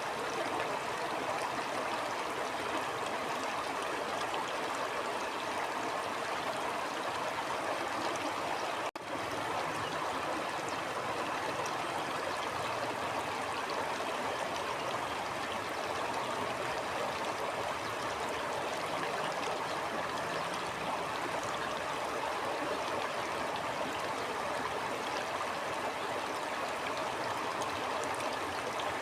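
Stream water flowing steadily, an even rush of running water. It cuts out for an instant about nine seconds in.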